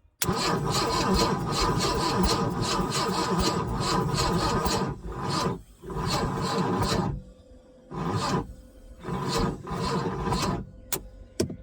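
Boat engine being cranked by its electric starter, powered from a jump box, in four separate bursts (one long, then three shorter) without firing, with a few clicks near the end. It cranks over slower than it should.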